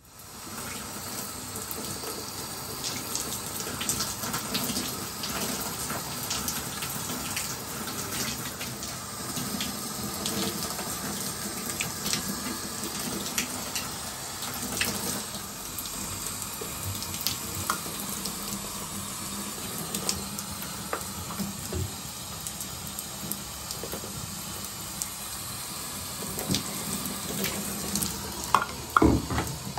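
Handheld shower head spraying water against the tiles: a steady hiss of running water with scattered drips and splashes, and a few louder knocks near the end.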